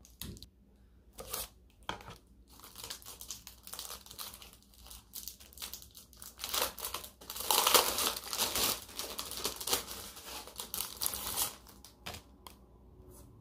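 Thin plastic film crinkling and tearing as it is peeled and pulled off a clear acrylic plaque, in irregular crackly rustles that are loudest about halfway through.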